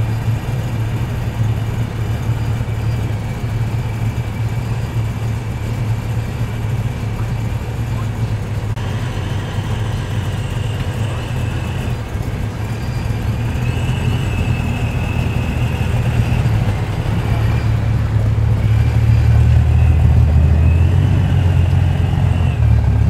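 Low engine rumble of muscle cars rolling past slowly at low revs, a Holden Torana and red Holden Commodores. The rumble grows louder near the end as the Torana passes close by.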